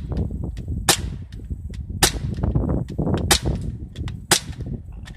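Crosman P10 Phantom CO2 BB pistol firing four sharp pops, about a second apart.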